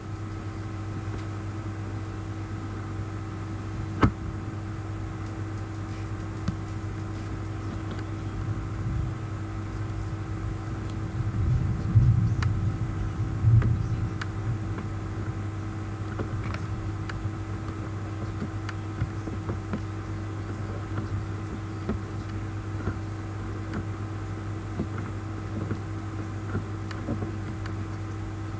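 Steady low electrical hum with fainter higher tones, the room's background noise. There is a single sharp click about four seconds in, and a brief low rumble around twelve to fourteen seconds in.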